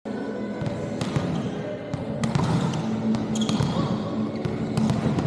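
A basketball bouncing repeatedly on the court, giving irregular sharp knocks, over the steady murmur of a crowd's voices.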